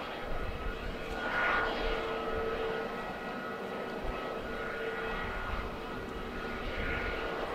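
Airbus A320neo's jet engines running at taxi power: a steady whine with two held tones over a low rumble, swelling briefly about one and a half seconds in.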